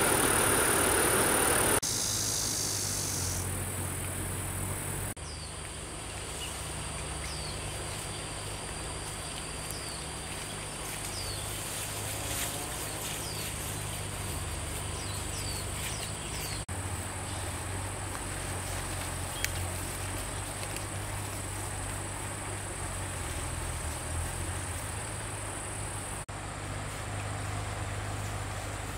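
An engine-driven water pump runs steadily with a low hum. Over it there is a steady high insect buzz, a brief louder rushing noise at the start, and a few short high chirps in the middle.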